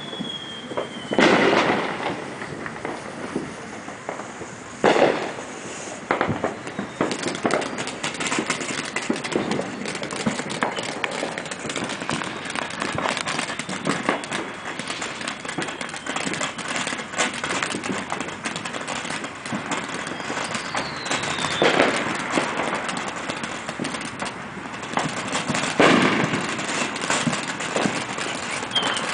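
Consumer fireworks going off: a ground fountain crackling with dense rapid pops, broken by four loud bangs, about a second in, about five seconds in and twice near the end. A couple of falling whistles sound, one about a second in and one past the middle.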